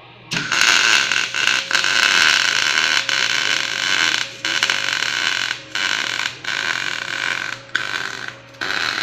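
A MIG welding arc burning on steel, in short runs: it starts about a third of a second in and stops briefly several times as the trigger is released between stitches.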